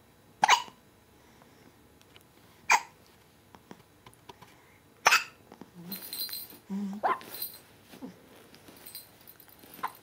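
A run of hiccups: five short, sharp ones, about every two and a half seconds.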